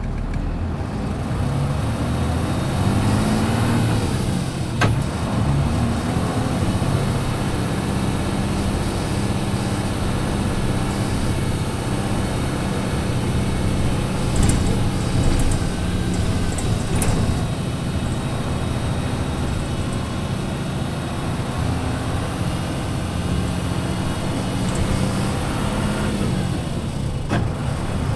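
Running sound inside a Hino KC-RU1JJAA short-body bus, its mid-size diesel engine pulling under way. The engine note climbs in the first few seconds, then holds steady, easing back near the end, with a couple of sharp clicks. This is a bus described as making a lot of odd noises.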